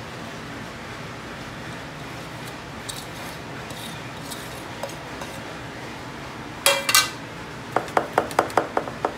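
Steel cooking pots clinking and knocking together over a steady hiss: a loud clatter about two-thirds of the way in, then a quick run of about seven ringing taps near the end.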